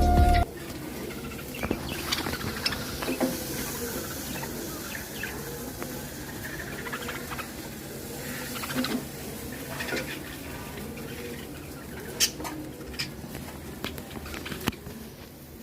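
Budgies in their cage: a steady run of small clicks and scratches, with a few short, sharp chirps standing out about twelve seconds in.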